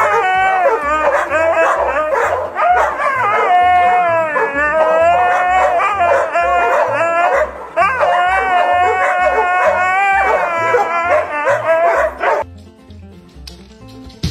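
A dog howling and whining in long, wavering cries that slide up and down in pitch, some held steady for a second or two. It runs over background music with a steady bass beat, and the cries stop about twelve seconds in.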